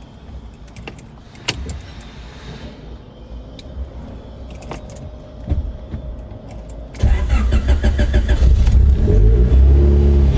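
Keys jangling and small clicks, then about seven seconds in a Honda EF Civic's engine is cranked by the starter, catches about two seconds later and runs, its pitch rising and falling near the end.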